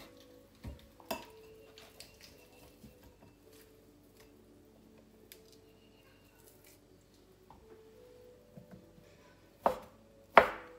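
Faint taps and clinks as cooked rotisserie chicken is handled in a bowl, then two sharp knife chops on a wooden cutting board near the end, the second the louder.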